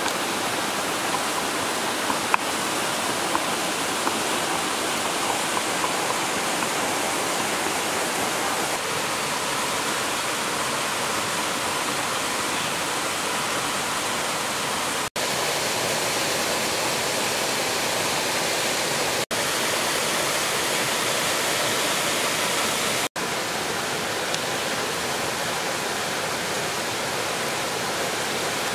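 Steady rushing of a rocky stream's flowing water, with a few light knocks of a wooden pestle in a mortar in the first few seconds. The rushing breaks off for an instant three times in the second half.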